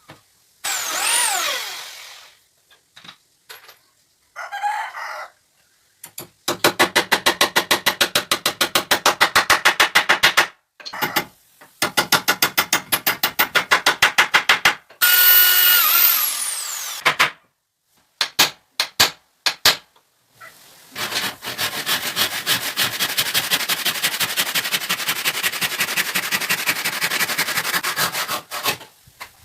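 Woodworking tools working wood in several bursts: runs of rapid, even strokes, then a long steady run near the end. A cry falling in pitch sounds about a second in, and a high tone glides down in the middle.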